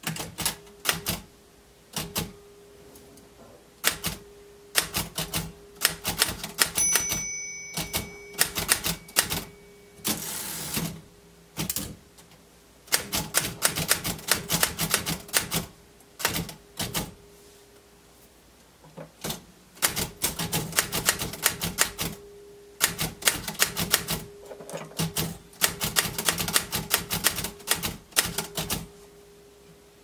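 Royal manual typewriter being typed on: irregular runs of sharp key strikes broken by short pauses. About seven seconds in the margin bell rings once, and a few seconds later the carriage is returned with a longer rattling sweep.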